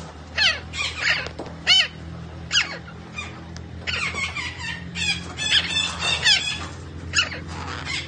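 Red-breasted parakeet giving a series of short, harsh calls, each falling in pitch, with a quicker run of calls about halfway through.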